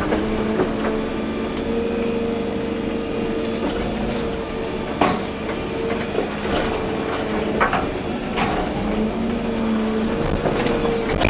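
Volvo EC240B excavator's diesel engine and hydraulics running with a steady hum and whine. A few sharp knocks and clanks of the machine at work come about halfway through and again a few seconds later.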